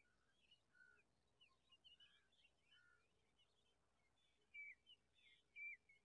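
Faint, scattered chirps and twitters of small songbirds, with two louder short chirps near the end.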